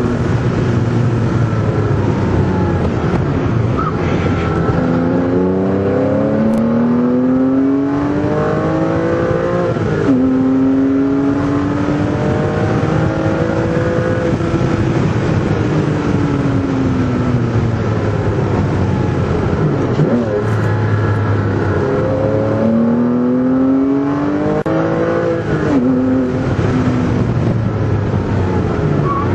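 Porsche Cayman S's flat-six engine heard from inside the cabin under hard driving. Twice the revs climb in a series of quick steps through the upshifts, and in between the pitch falls away slowly as the car slows, with steady tyre and road noise underneath.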